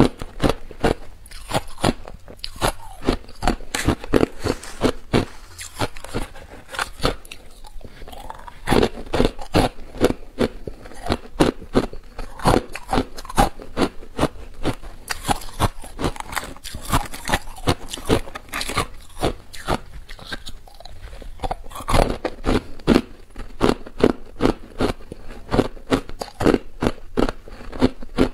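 Hard ice chunks being bitten and chewed right at the microphone: a dense, irregular run of sharp cracks and crunches, several a second, with a couple of brief lulls.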